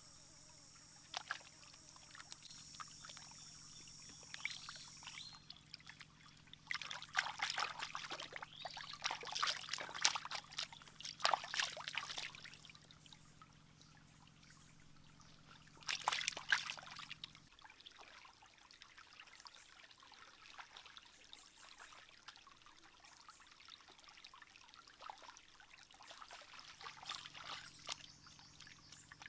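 Water trickling in a shallow rocky stream as raw chicken thighs are rinsed and rubbed by hand in it, with irregular bouts of splashing, the loudest from about a quarter of the way in to just past the middle.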